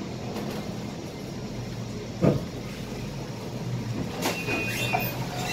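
Interior of a Scania K320IA city bus under way: steady engine and road rumble, with a single loud thump about two seconds in and short squeaks and rattles near the end.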